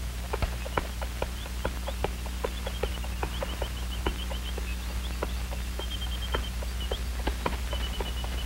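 A steady low hum from an old optical film soundtrack, with many scattered sharp clicks and crackles through it, and runs of short high chirps repeated several times a second.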